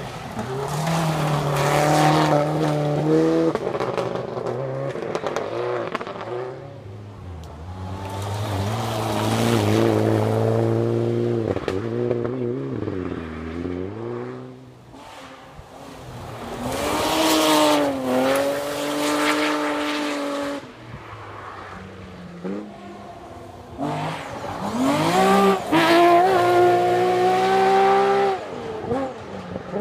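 Rally cars passing one after another, about four times, engines revving hard with pitch climbing and dropping at each gear change. Each pass swells loud and then fades.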